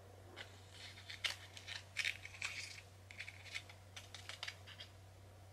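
Faint irregular clicking and crinkling: a run of small, sharp handling sounds, like a little packet or plastic lid being worked by hand, stopping a little before the end.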